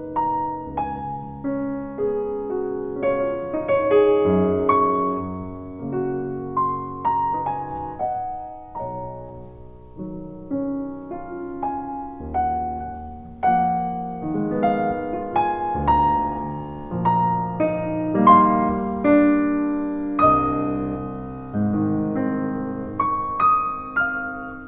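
Soft solo piano music, gently played notes that ring out and fade.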